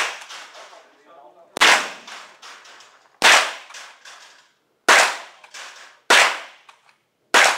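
Rimfire rifle fired five times in a steady string, one shot every 1.2 to 1.7 seconds, each sharp crack trailing off in a short ring.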